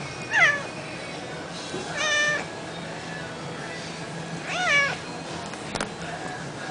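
Domestic cat meowing three times, each meow a short call that bends in pitch, with pauses of about two seconds between them.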